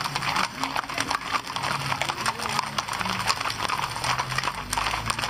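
Hooves of several horses walking, a dense run of overlapping clip-clops, with voices underneath.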